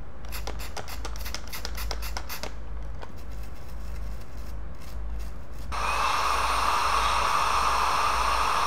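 A brush scrubbing a corroded circuit board, a quick run of scratchy strokes, then about two-thirds of the way in a hot air rework station's blower starts and runs with a steady hiss and a faint whine.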